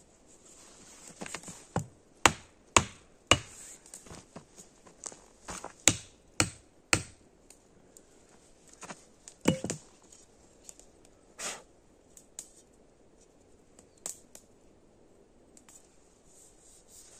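Small hatchet chopping wood in a series of sharp knocks, about two a second at first and then more spaced out, splitting kindling for the fire. Later only faint scratches and ticks as a knife carves a stick.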